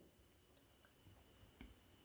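Near silence, with one faint click about one and a half seconds in.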